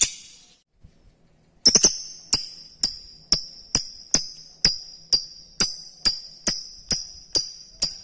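After a short pause, a regular series of sharp, ringing jingle-bell strikes starts up and keeps an even beat of a little over two a second.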